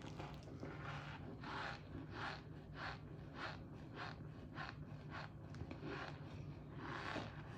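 Chewing crunchy cornstarch chunks: a quiet, regular crunch about twice a second.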